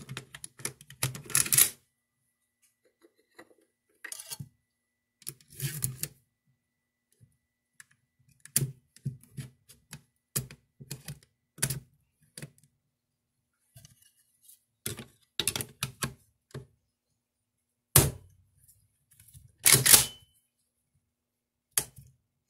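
Metal parts of an IWI Galil ACE 7.62x39 pistol clicking, clacking and scraping as it is put back together by hand: the bolt carrier with its recoil spring and guide rod and the top cover going back onto the receiver. The sounds come in scattered short bursts with quiet gaps, and there is a sharp knock late on, then a louder clatter shortly after.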